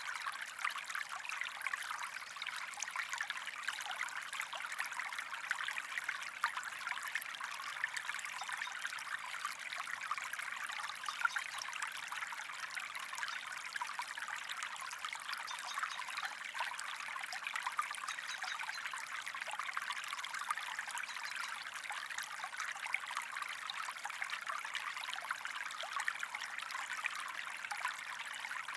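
Shallow stream flowing and trickling over stones, a steady babble of small splashes and gurgles with most of its energy in the upper middle range.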